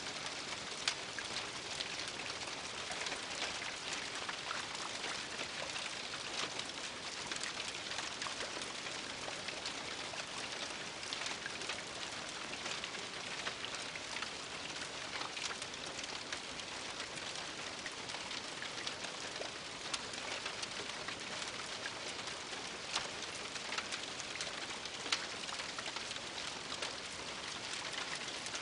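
Steady rain on a house roof heard from inside the attic: a dense, even hiss of drops with many small ticks and an occasional louder single drop hit.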